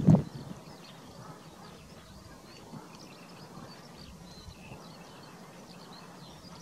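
Skylarks singing continuously in the distance, a thin run of high chirps and trills, over a low rumble of wind on the microphone. A brief louder low buffet of wind or handling noise on the microphone comes at the very start.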